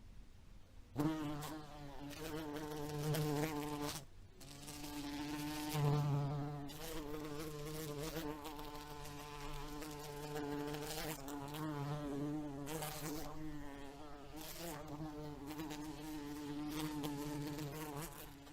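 House fly buzzing in flight, a wavering pitched drone that swells and fades as it moves. It drops out briefly near the start and again about four seconds in, then carries on.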